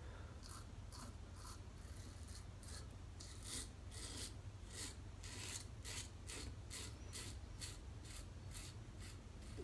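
Merkur Futur adjustable safety razor on setting 6, fitted with a new Feather blade, scraping stubble through shaving lather on the cheek. The short, faint strokes repeat about two or three a second.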